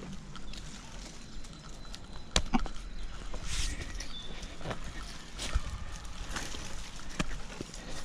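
Irregular knocks and scraping rustles, about one a second, of a climber's hands and shoes gripping and pushing against a tree trunk.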